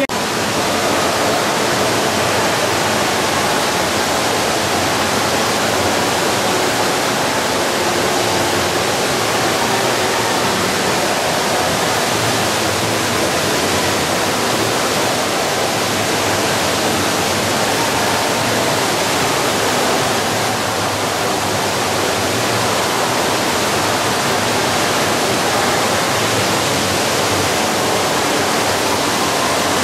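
Steady rush of water falling from the rim of a tiered ornamental fountain into its pool below, an even splashing that does not change.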